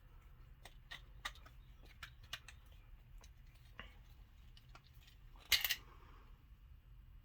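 Small metal clicks and taps from a padlock's parts and a small tool being handled while ball bearings are set in the lock body, with a louder short clatter about five and a half seconds in.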